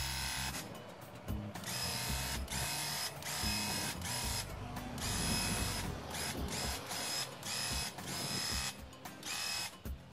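Graco Ultra handheld airless paint sprayer's battery-driven pump buzzing in short stretches that start and stop every second or so, as the trigger is pulled for each stroke of paint, under background music.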